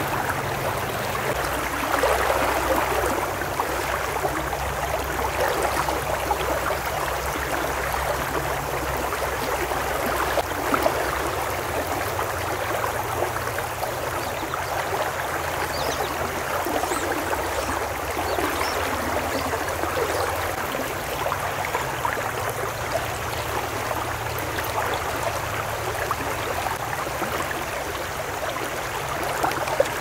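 Shallow river water rushing and burbling steadily over a rocky riffle.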